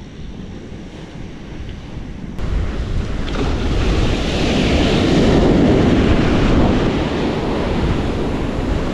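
Surf breaking and washing up a sandy beach, with wind rumbling on the microphone. The rush of the surf steps up suddenly about two and a half seconds in and swells to its loudest around the middle.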